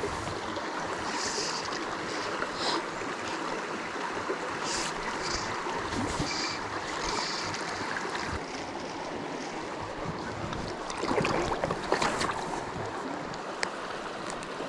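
Mountain brook flowing, a steady rush of water, with a few brief knocks about eleven to twelve seconds in.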